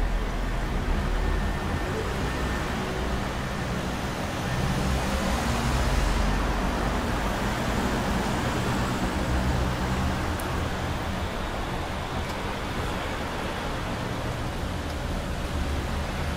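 City street traffic: cars and taxis driving past on a multi-lane road, a steady wash of engine and tyre noise that swells as a vehicle passes close about five seconds in.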